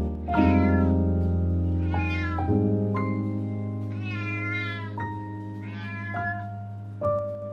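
A cat meowing four times, with long drawn-out mews of bending pitch, over soft background piano music.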